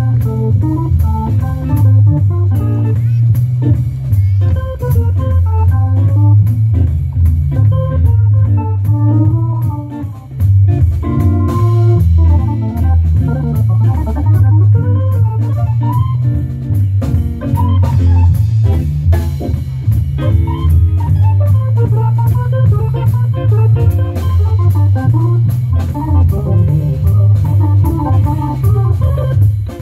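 Live jazz band: an organ plays fast melodic runs over a heavy, steady bass line, with a drum kit keeping time behind it.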